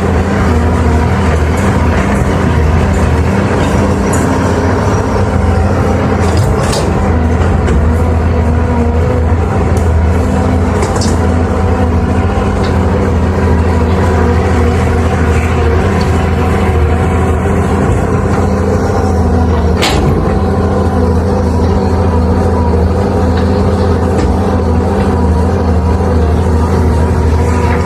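Heavy diesel machinery engine running steadily under a constant low drone, with a few sharp metallic knocks, the clearest about twenty seconds in.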